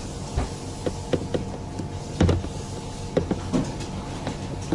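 Scattered small clicks and knocks of wire terminals being pushed onto a deep fryer's new on/off switch and of the metal control box being handled, the loudest knock about two seconds in. A steady hum runs underneath.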